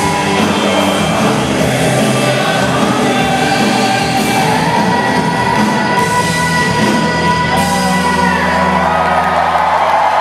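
Live rock band in a large hall with a male lead singer holding long sung notes over guitars and drums, the crowd cheering. Near the end the singing stops and the band holds a final ringing chord.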